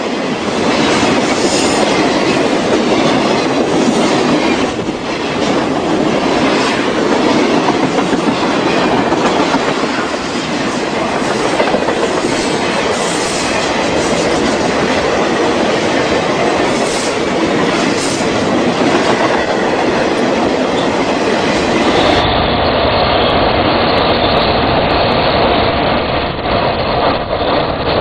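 Freight train of loaded flatcars rolling past, a steady heavy rumble with wheels clattering over the rail joints and some wheel squeal. About three-quarters of the way through the sound turns duller and deeper.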